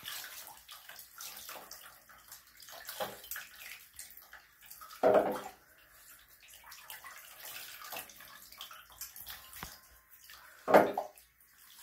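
Water splashing and pouring in a bathtub as a puppy is rinsed with water scooped and poured from a cup, with two short louder splashes, about five seconds in and near the end.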